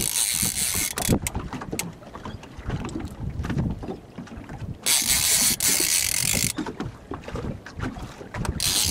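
Fishing reel whirring in spells of a second or so while line is taken in on a hooked shark, over a steady low rumble of wind and water.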